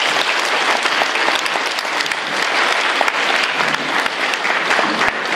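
Audience applauding, many hands clapping, dying away near the end.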